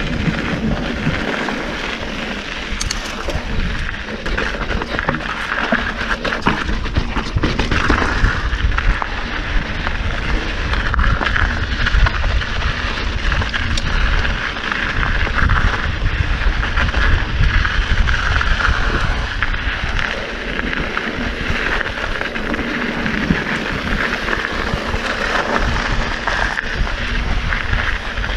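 Wind buffeting the ride camera's microphone over the rumble and rattle of a mountain bike rolling fast down a dirt singletrack, with scattered knocks and clicks as the tyres hit rocks and ruts.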